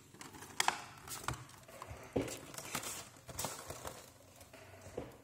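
Clear plastic blister packaging being handled as a display stand and base are worked out of it. It crinkles, with irregular crackles and sharp clicks.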